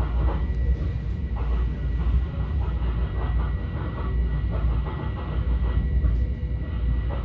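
Interior ride noise of a Long Island Rail Road commuter train running at speed through a station: a steady low rumble of wheels on rail, with occasional clicks and a faint steady high whine.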